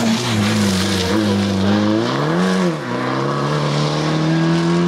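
Fiat Abarth 500 R3T rally car's turbocharged four-cylinder engine approaching at high revs. The revs dip, rise and fall once about halfway through, then hold and climb slowly as the car nears.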